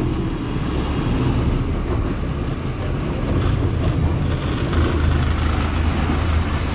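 Truck's diesel engine running at low speed, heard from inside the cab, as the truck creeps up to a stop at a toll booth; its low hum grows stronger about halfway through.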